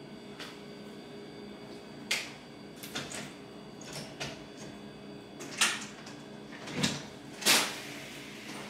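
Front door's lock and handle being worked: a string of sharp clicks and clunks, the loudest near the end.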